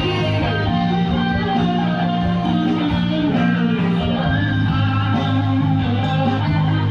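Live band music in an instrumental passage, with guitar to the fore over a steady bass line.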